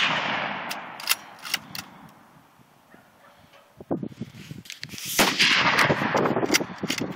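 Mosin-Nagant bolt-action rifle (7.62×54R) fired at a bench: the echo of one shot rolls away, the bolt clicks as it is worked, then a second loud shot about five seconds in rings out with a long rolling echo, followed by more bolt clicks.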